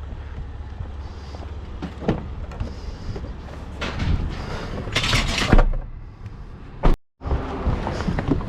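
Scrap items being handled and bagged, with scattered knocks and a loud thump about five and a half seconds in, over a low rumble. The sound drops out completely for a moment about seven seconds in.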